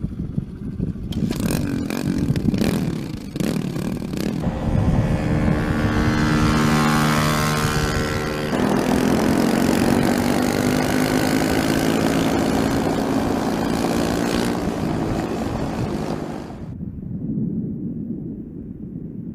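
Dirt bike engine revving as the bike pulls away and rides across the flat, its pitch climbing, dropping suddenly once partway through, then climbing again. It cuts off abruptly near the end, leaving a quieter low rumble.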